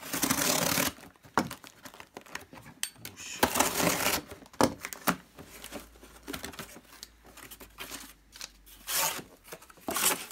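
Parcel packaging being torn open and handled: three bursts of tearing and crinkling, the longest at the start and another a few seconds in, with small knocks and rustles between.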